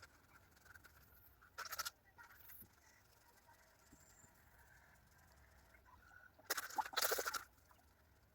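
Two short calls from fowl over a quiet background: a brief one about two seconds in, and a longer, louder one about six and a half seconds in.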